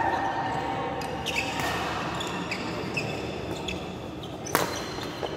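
Indoor badminton rally: sneakers squeak in short chirps on the court floor, then a racket strikes the shuttlecock sharply about four and a half seconds in, followed by a lighter click.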